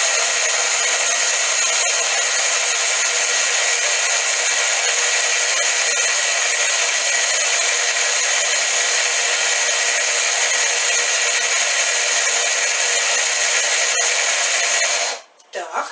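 Electric blender motor running steadily at full speed, chopping the herbs for pesto. It cuts off abruptly near the end.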